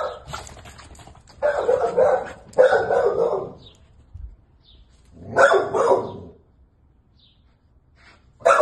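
A dog barking in three drawn-out, about one-second bursts, the last a few seconds after the first two.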